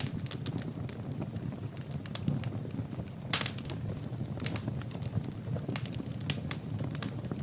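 Wood fire in a fireplace crackling, with irregular sharp pops over a steady low rumble of the flames; a louder burst of crackling about three and a half seconds in.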